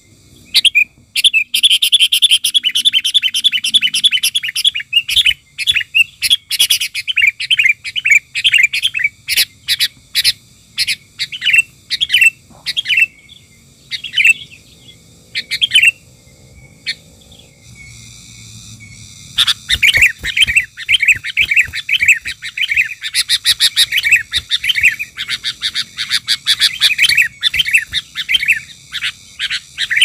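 Sooty-headed bulbuls (kutilang) calling in rapid, loud chattering runs, with a short lull a little past halfway before the chatter resumes.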